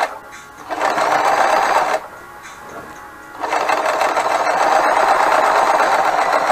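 Frister & Rossmann 502 semi-industrial sewing machine stitching a zigzag seam through fabric in two runs: a short run of about a second, a pause, then a longer run of about three and a half seconds.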